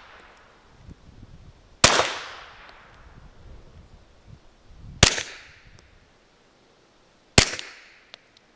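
Three suppressed 9mm pistol shots from a Glock 48 MOS fitted with a JK Armament suppressor bored out to .45 caliber, spaced about two to three seconds apart. Each is a sharp, very poppy, very loud crack with a short fading echo.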